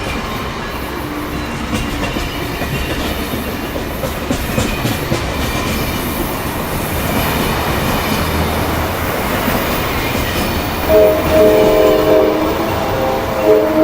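A passing train's steady rushing wheel-on-rail noise, then near the end two blasts of a multi-note air chime horn, the second running on past the end.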